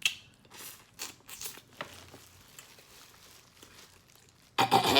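Crinkling of a plastic seafood-boil bag in short rustles as food is picked out of it, with a louder burst of rustling near the end.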